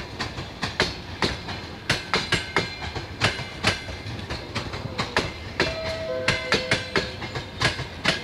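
Wheels of passenger coaches clacking over the rail joints as a train rolls past, several sharp clacks a second in uneven groups over a steady rumble. A short two-note tone sounds about two thirds of the way in.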